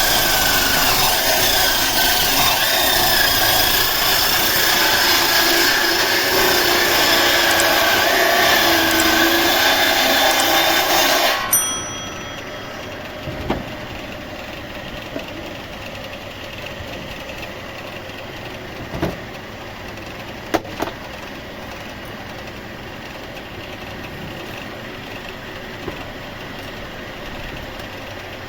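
Sawmill saw running loudly through wood, its pitch wavering under load. About eleven seconds in the loud cutting cuts off abruptly, leaving a quieter steady machine hum with a few sharp knocks.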